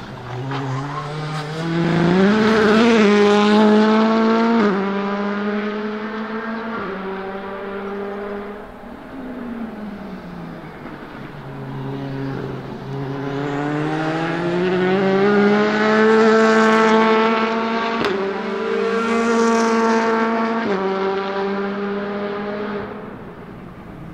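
Honda Civic WTCC TC1 race cars, each with a 1.6-litre turbocharged four-cylinder engine, accelerating hard out of a corner one after the other. Each engine note rises and then steps down sharply at each upshift, and the second car fades away near the end.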